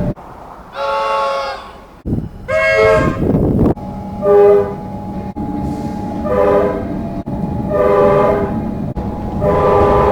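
Comeng electric suburban train's horn sounding in about six short blasts, each a chord of several tones. The blasts come from separate recordings cut abruptly together, over the low rumble of the train running.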